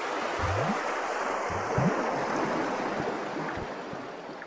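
Transition sound effect under a title card: a long swell of rushing noise that holds steady, then fades away near the end, with a few short low rising sweeps underneath in its first half.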